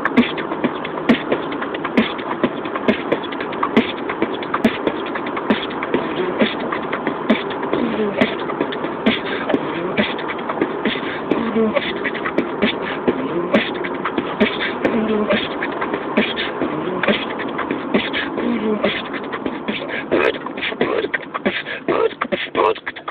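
A man beatboxing inside a car: a steady, dense run of sharp mouth-made percussion clicks, several a second, over a continuous breathy vocal hum with short sliding pitched tones.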